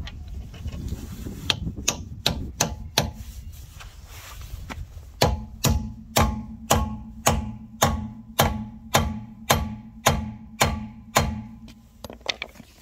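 Club hammer striking a 21 mm smooth-bore socket to drive it onto a locking wheel nut on an alloy wheel, so the socket bites on the nut. A few scattered blows come first, then a steady run of about two blows a second, and the metal rings between them.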